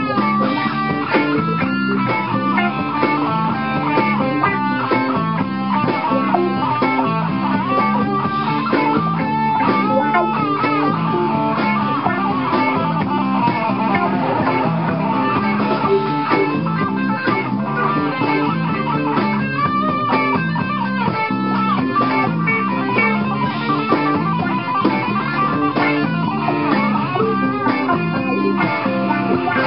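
A live band jamming, with electric guitar prominent over bass guitar and drums.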